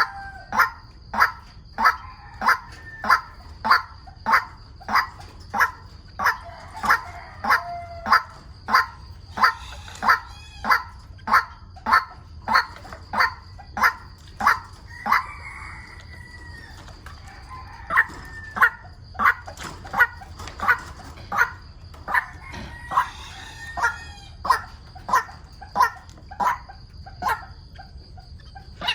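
White-breasted waterhen calls: a short harsh note repeated evenly, about one and a half to two a second, softening for a couple of seconds mid-way, over a faint steady high tone.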